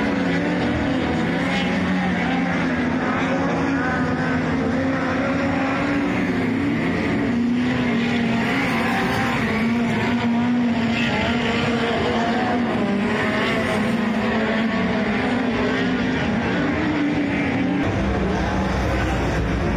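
Engine of a single winged dirt-track race car running hard around the oval, its pitch rising and falling through the straights and turns. A deeper rumble comes in near the end.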